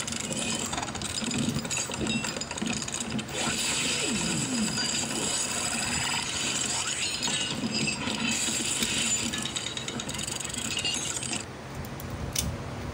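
Plastic parts of a Transformers Beast Alliance Wheeljack toy clicking and snapping as they are folded and pushed into place by hand, in a quick irregular run of small clicks.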